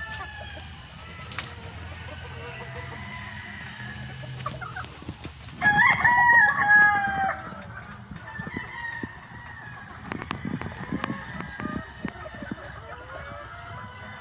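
A rooster crows once, loudly, about six seconds in, a call of nearly two seconds. Hens cluck quietly around it.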